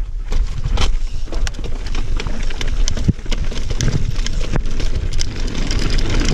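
Mountain bike rattling over rough rock and cobblestones: repeated sharp knocks and clatter from the tyres, chain and frame over a steady low rumble.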